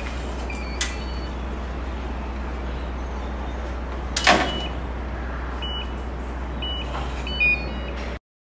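Metal mesh gate with a digital door lock being worked: a light click about a second in, a loud metallic clank about four seconds in as the gate shuts, then several short high electronic beeps from the lock near the end, over a steady low hum.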